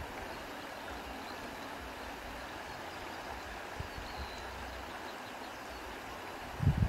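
Wind blowing through tall grass: a steady hiss, with a low gust buffeting the microphone near the end.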